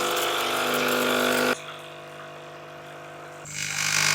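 Sage espresso machine's pump running during a descaling cycle, a steady mechanical buzz. It drops to a quieter level about a second and a half in, swells again near the end, then cuts off.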